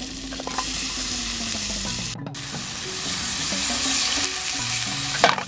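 Chopped chilies frying in hot oil in a wok, with a dense steady sizzle. The sound breaks off briefly about two seconds in. Water is then poured onto the frying chilies, and the hiss grows louder.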